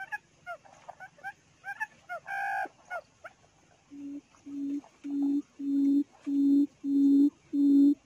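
Small bird chirps in the first half, then a steady series of low, evenly spaced hoots, each about half a second long, growing louder: a quail calling near a quail trap.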